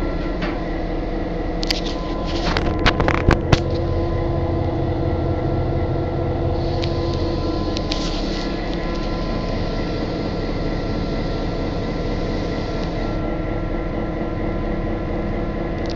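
Steady drone of an EMD GP38-2 locomotive's diesel engine running, heard inside the locomotive's toilet compartment. A few sharp knocks come about two to three and a half seconds in, and a hiss rises over the drone for several seconds in the middle.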